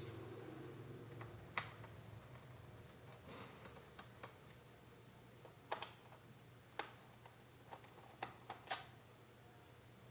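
Light, irregular clicks and taps of hard plastic parts of a laptop being handled, about a dozen spread unevenly, over a faint low hum that fades out in the first second or so.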